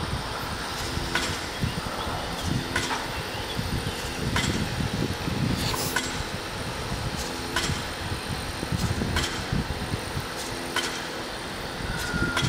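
A steady mechanical rumble with a sharp click repeating evenly about every second and a half, with a short low hum on the same beat.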